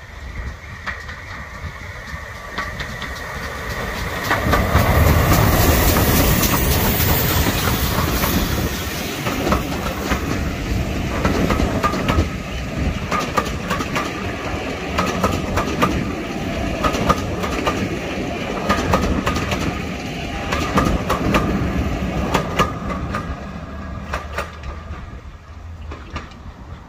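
A steam train passing close by. It is loudest as the locomotive goes past about four to eight seconds in. Its coaches then roll by with a clickety-clack of wheels over the rail joints, fading as the train draws away near the end.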